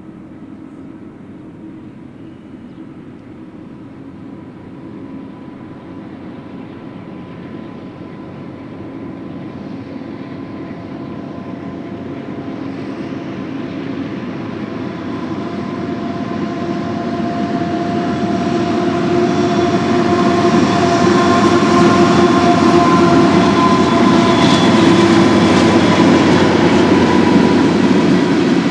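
Diesel freight locomotives leading a BNSF intermodal train approach, growing steadily louder for about twenty seconds and then running loud and close, with faint steady tones above the rumble.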